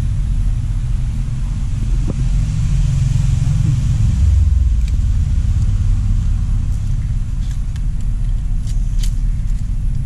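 Heavy low rumble of road traffic on the bridge overhead, swelling about two to five seconds in. A few faint metallic clicks come through as pliers unhook a lure from a landed red snapper.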